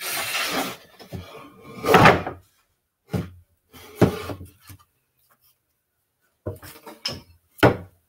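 Box-jointed pine beehive panels being handled on a table: boards sliding and knocking against each other, with several sharp wooden knocks, the loudest about two seconds in and near the end.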